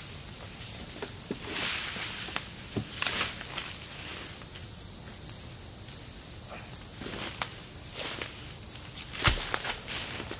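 Steady high-pitched drone of insects, with footsteps and rustling through weeds and a single heavy thud about nine seconds in as a weathered wooden plank is handled.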